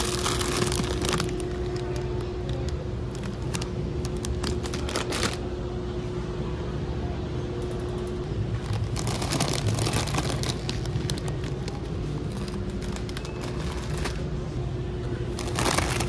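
Plastic snack bags crinkling as they are handled, a popcorn bag and then a potato chip bag, in several short bursts: at the start, around 3 to 5 seconds in, around 9 to 11 seconds in, and again near the end. A steady low hum runs underneath.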